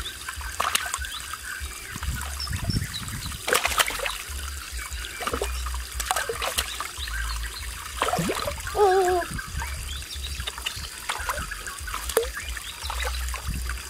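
Shallow stream water trickling over rock, with repeated splashes as hands grab at a catfish in the water. A brief wavering call comes about nine seconds in.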